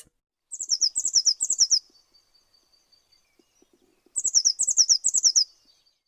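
Blue tit singing: two short phrases about two and a half seconds apart. Each is a quick run of high, falling notes that trails off into a thin, faint high note.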